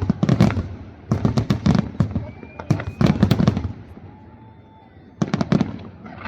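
Large aerial fireworks display: shells bursting in rapid clusters of bangs, four salvos in all, with a quieter lull of about a second before the last salvo near the end.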